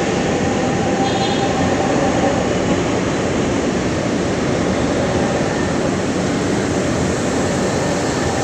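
LRT Line 1 light-rail train running past the platform: a steady rush of wheels and running gear on the rails, with a brief faint high whine about a second in.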